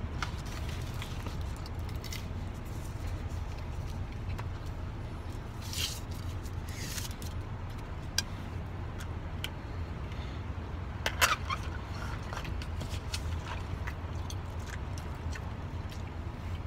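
Steady low rumble of a vehicle's engine idling, heard inside the cab, with a few short rustles and clicks; the loudest comes a little past halfway.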